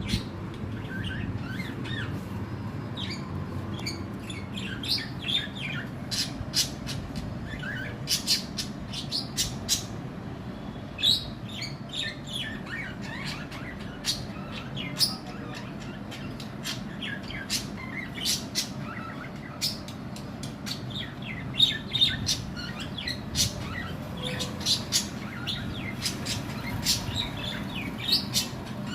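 Small pet parrots chirping and squawking in short, sharp, irregular calls, over a steady low hum.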